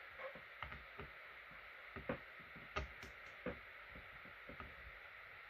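A torque wrench ratcheting and clicking, a string of light, irregular metal clicks, as the connecting-rod cap bolts of a McCulloch 101B chainsaw engine are tightened up to torque.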